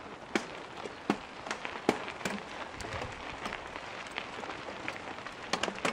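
Mountain bike tyres rolling over loose gravel and stones as riders pass: a steady crunching hiss with irregular sharp clicks of stones being kicked and struck, several close together near the end.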